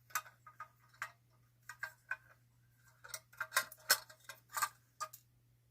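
Irregular light clicks and taps of a metal Buddy L toy truck being handled, its parts knocking together, coming thickest from about three to five seconds in.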